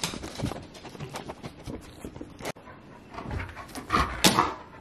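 A dog jumping up and moving around excitedly on a wooden floor: claws tapping, with panting, and a louder sharp sound about four seconds in.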